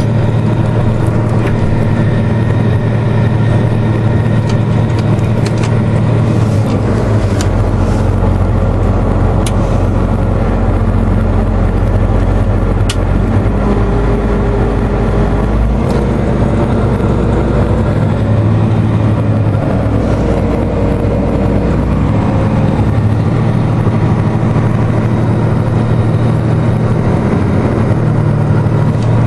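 John Deere 8225R tractor's diesel engine running steadily under load while towing a trailer, its low drone shifting in pitch a few times. A few sharp clanks come in along the way.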